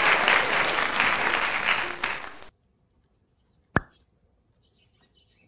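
A dense, crackling hiss fades over the first two seconds and cuts off abruptly. Then near silence, one sharp click, and a few faint bird chirps near the end.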